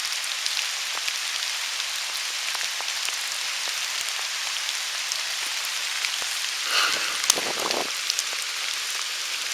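Steady rain falling, with many close drops ticking through the hiss. About seven seconds in there is a brief rustle with a sharp tap.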